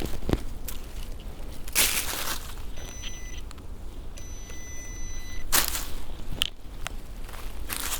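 XP Deus metal detector giving two steady high beeps, a short one about three seconds in and a longer one just after. Several bursts of rustling fall between them.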